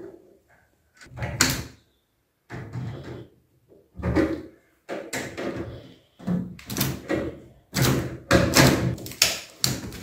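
Pliers working a washing machine's transit bolt tight against the sheet-metal back panel: a string of irregular knocks and rattles that comes louder and closer together in the second half. The bolt holds the drum still so it cannot shake loose in transport.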